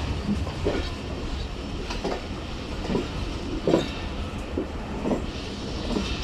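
Passenger train coach rolling slowly out of a station, heard from its open doorway: a steady low rumble with irregular wheel clacks over rail joints and points about once a second, the loudest a little past the middle.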